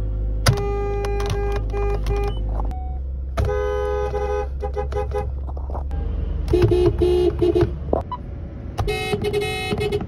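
Car horns from several different cars in turn, each sounding in short beeps and brief held honks, in four groups with a different horn pitch each time. A low engine idle hum runs underneath, recorded from inside each car.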